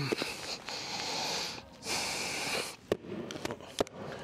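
A man breathing hard and heavily, out of breath from exertion: two long, hissing breaths about a second each, followed by a couple of short clicks.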